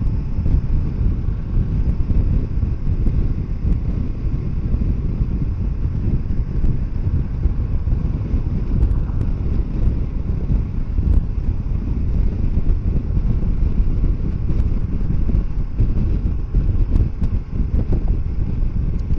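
Steady wind rush buffeting the microphone of a Kawasaki Versys 650 motorcycle riding at road speed, the bike's running mixed into the low rumble.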